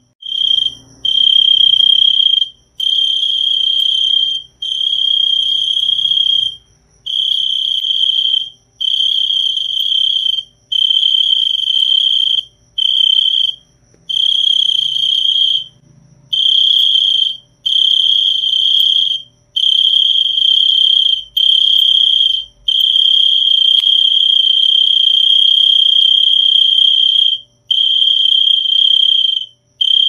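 A cricket chirping loudly and close by, a single high-pitched trill repeated in bouts of one to two seconds with short gaps, then one unbroken trill of about four seconds past the middle.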